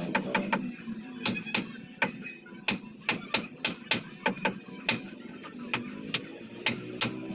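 Hammer driving nails into a wooden stud frame: a long, irregular run of sharp blows, about two to three a second.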